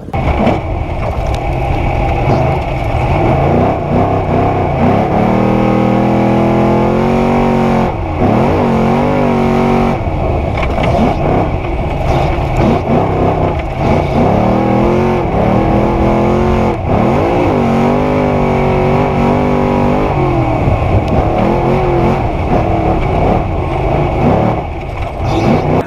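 A 900 hp Trophy Truck engine heard from inside the cab under hard throttle. The revs climb, drop sharply and climb again over and over as the truck accelerates, shifts and lifts through the track's turns.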